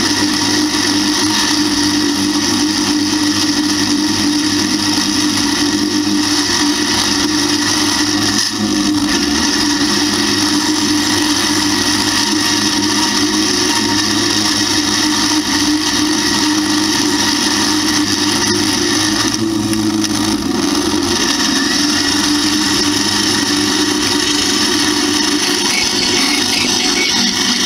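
1952 Allis-Chalmers WD tractor's four-cylinder engine running steadily under way, together with the whirring of its mounted two-row corn picker. The engine note changes slightly about twenty seconds in.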